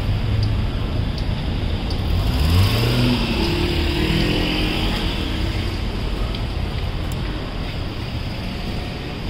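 A car driving past on a city street, its engine note rising and then falling as it goes by, loudest about three seconds in, over a steady hum of street noise.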